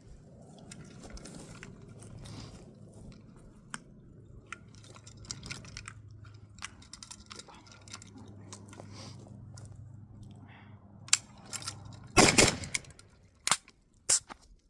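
Quiet handling clicks and rustling, then AK63F rifle shots starting about twelve seconds in: a loud report followed by two more sharp shots over the next two seconds.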